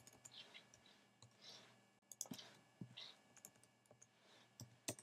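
Faint computer keyboard and mouse clicks, scattered and irregular, with a small cluster about two seconds in and a few more near the end, as a number is typed into a field.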